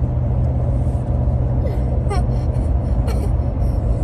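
Steady low rumble of a vehicle heard from inside the cabin, with a few brief high chirps about two and three seconds in.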